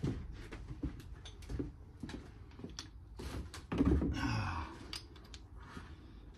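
Hand tools being handled on the van's suspension: scattered clicks and metal knocks, with a louder rasping, clattering stretch about four seconds in.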